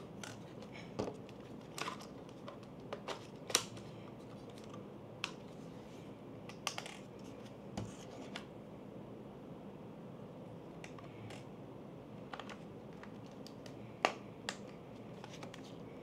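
Sony ZV-E1 camera body and SmallRig cage parts being handled and fitted together: scattered clicks and light knocks, with a quiet stretch in the middle.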